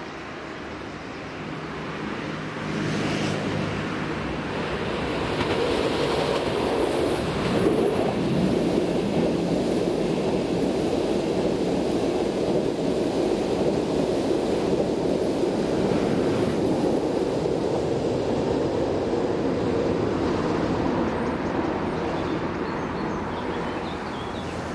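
Railjet passenger train rolling past on electrified track: a steady rumble of wheels on rail that builds over the first few seconds as it approaches, holds loud while the coaches pass, and eases off near the end.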